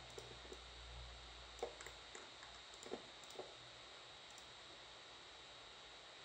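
Near silence with steady faint hiss and a thin high whine, broken by a handful of faint computer mouse clicks between about one and a half and three and a half seconds in.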